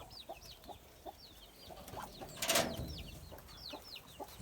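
Birds chirping continuously in quick, short, high notes that slide downward, several a second. A brief, louder burst of noise comes about two and a half seconds in.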